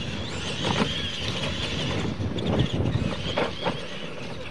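Radio-controlled Clodbuster-based retro monster trucks racing down a dirt track, a steady drive noise with a few short sharp knocks.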